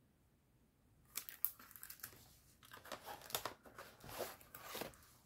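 Crinkling and rustling of a kraft paper envelope and plastic-sleeved die packs being handled, starting about a second in, irregular with a few sharp crackles.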